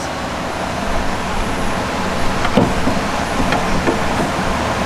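Steady workshop background noise with a low hum, and a few light knocks of metal engine parts being handled in the second half.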